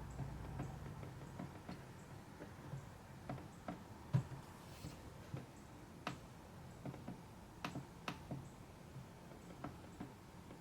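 Faint, irregular clicks of a laptop being operated, with one louder knock about four seconds in.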